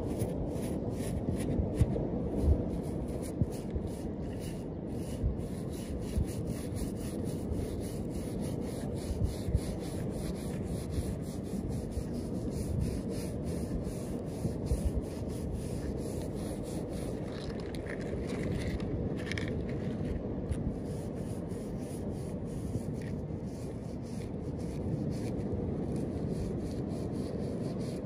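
A toothbrush scrubbing algae off a small turtle's shell: a steady rubbing of bristles on shell with many small clicks.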